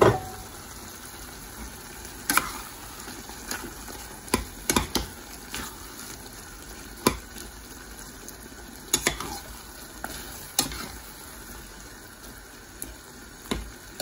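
A slotted metal spatula stirs mushrooms into a thick gravy in a cast-iron pot, knocking and scraping against the pot every second or two. A faint steady sizzle from the hot gravy runs underneath.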